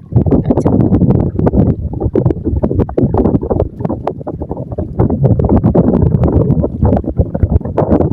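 Strong wind buffeting the microphone: a loud low rumble with crackling that swells and eases in gusts.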